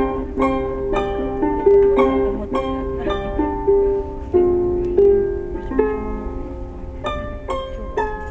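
A plucked string instrument played solo in a slow melody: single notes plucked about twice a second, each ringing on and fading.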